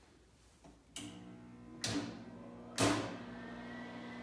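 A click about a second in, then a steady electrical hum from a MIG welder that has been powered on. Two sharp knocks come about two and three seconds in.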